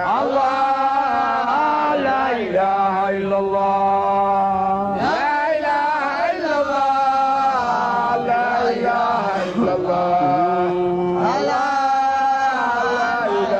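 Voices chanting a religious refrain without clear words, in long drawn-out held notes that glide between pitches, phrase after phrase with fresh starts about 2.5, 5 and 11 seconds in.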